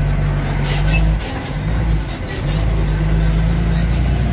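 Truck engine running steadily as the truck drives over a muddy, waterlogged dirt track. Its low engine note breaks off for about a second just after a second in, then picks up again.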